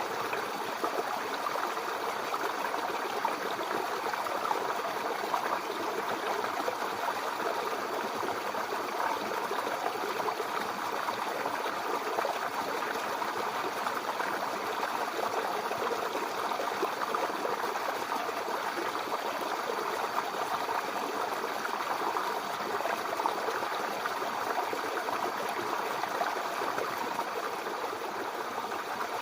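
Babbling brook: water flowing and bubbling in a steady rush with fine, quick flickers.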